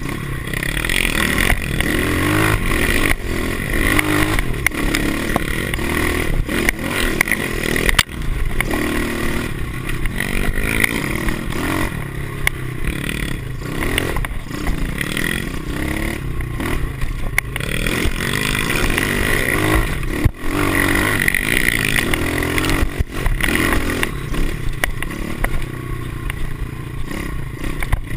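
Small four-stroke single-cylinder pit bike engine revving up and down again and again as it is ridden along a bumpy dirt trail, heard from a handlebar-mounted camera with rattling and clatter over the bumps.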